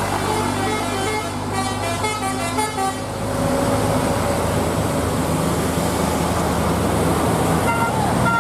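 Large vehicle engine running steadily under load, with a quick run of short horn notes at changing pitches in the first three seconds, and another horn sounding near the end.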